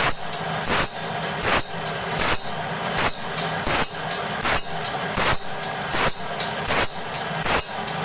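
Automatic band saw blade sharpening machine running: a steady motor hum with a short, sharp grinding burst about every three-quarters of a second as the grinding wheel passes each tooth.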